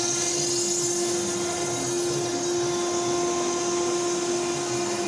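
A stone-cutting machine running steadily with a constant whine over a hiss.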